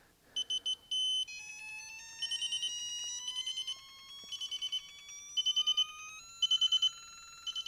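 Electronic beeper of a Wheeler digital torque screwdriver being turned up toward 100 inch-pounds: groups of rapid high beeps about once a second, over a steady tone that starts about a second in and rises slowly in pitch as the torque builds.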